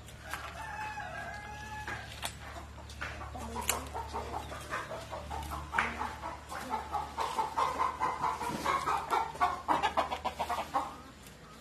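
Chickens clucking, with a rooster's long crow about half a second in. The clucking grows louder and busier over the last few seconds, mixed with rustling and snapping of leaves and twigs as guava branches are pulled down.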